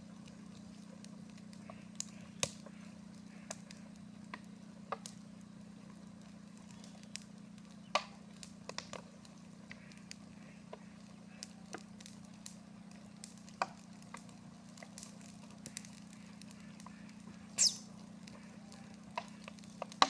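Burning rubbish fire crackling, with scattered sharp pops and one louder pop near the end, over a steady low hum.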